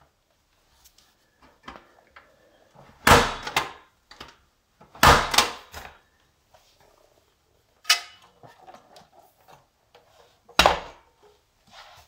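Parts of a Hoover 402 vacuum cleaner being handled with the motor off: four loud clunks and clatters a few seconds apart, with light handling noises between them.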